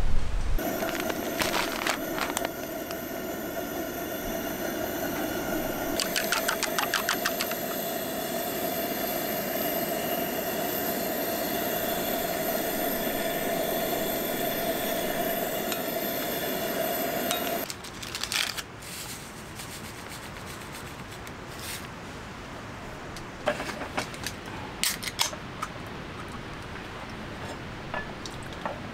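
Two-burner camp stove burning under pots of simmering soup and boiling water: a steady hiss with faint steady tones, and a quick run of small clicks about six seconds in. It cuts off suddenly about 18 seconds in, leaving a quieter background with a few light clinks and knocks of steel tumblers and pots on a wooden table.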